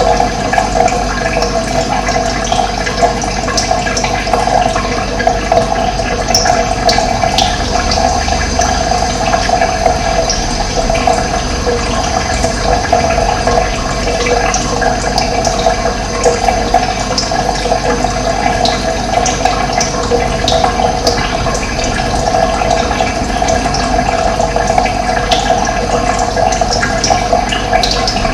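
Running water rushing steadily, a full and even flow with no pauses.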